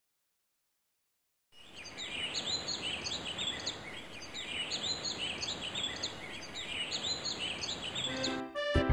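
Birds chirping in repeated short phrases over a steady hiss, starting after about a second and a half of silence. Music comes in near the end.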